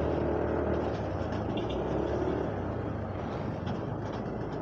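Yamaha Aerox V2 scooter's single-cylinder engine running steadily while riding, under a haze of wind and road noise; it eases off a little about halfway through.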